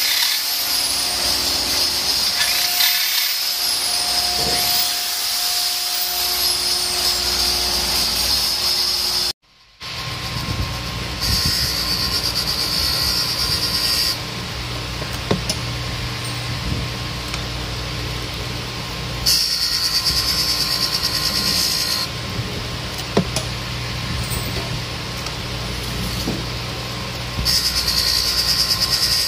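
An electric hand drill runs steadily, turning a cutter in a cylinder head's valve seat. After a short break, a valve refacing machine's motor hums steadily, and three times for about three seconds each a higher grinding hiss joins it as the wheel grinds a valve face.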